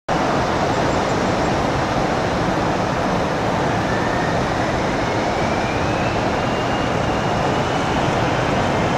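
Bombardier CRJ-700's twin rear-mounted GE CF34 turbofans: a steady rush of jet noise with a thin whine that rises in pitch from about halfway through, as the engines spool up for the takeoff roll.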